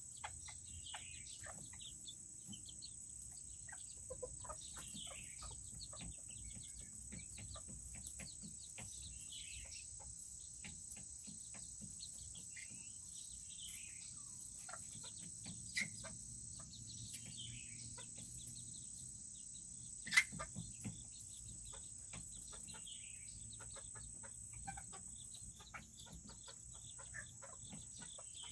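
Serama chickens calling with short, falling peeps and soft clucks, among many light taps and clicks, over a steady high-pitched hum. One sharp, louder tap comes about twenty seconds in.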